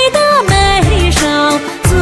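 Instrumental passage of a Chinese pop song: a melody that slides between notes over a steady drum beat and bass.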